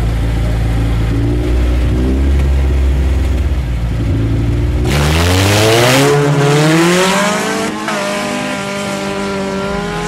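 Cars launching in a street race, one a Honda CR-X: engines rumble at the line, then about five seconds in a loud launch with tire noise as the engines' pitch climbs hard while they accelerate away, with a brief break in the climb, like a gear change, about eight seconds in.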